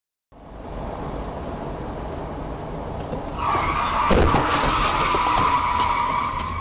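Car road noise from a dashcam, then about three seconds in a loud, steady tyre squeal of hard emergency braking that holds to the end. Knocks and scraping from a motorcycle crash come during the squeal.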